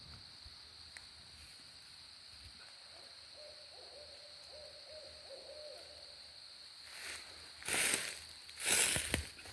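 An owl hooting faintly in the distance, a quick run of short notes on one steady pitch. Near the end come loud bursts of rustling noise close to the microphone.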